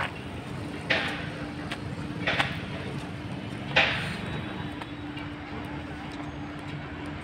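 Steady outdoor hum like distant traffic, with three short rushing bursts about a second and a half apart.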